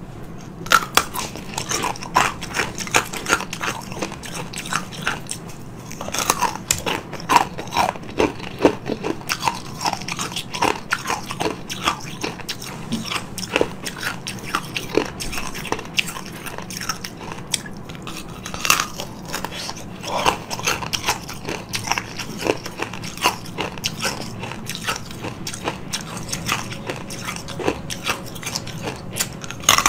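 Biting and crunching into blocks of ice with frozen fruit inside, with chewing in between: many sharp, irregular crunches throughout.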